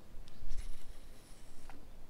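Handling noise from a baitcasting rod and reel: a soft low bump about half a second in, about a second of light hiss, and a short click near the end.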